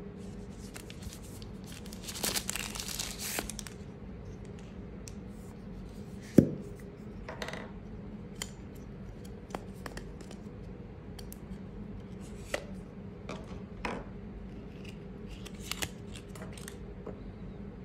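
Hand handling noises of a pen being unpacked from its paper-labelled tube packaging: a couple of seconds of paper rustling and tearing near the start, one sharp knock about six seconds in, then scattered small clicks and rubs. A faint steady hum runs underneath.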